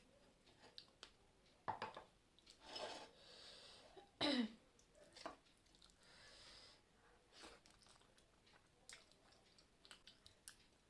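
A person eating close to the microphone: soft chewing and wet mouth sounds with small clicks and a couple of breaths, and one louder, short sound falling in pitch about four seconds in.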